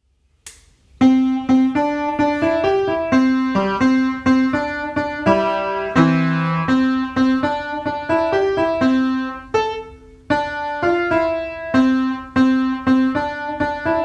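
Background piano music that starts about a second in: a steady stream of struck notes, with a short lull near ten seconds.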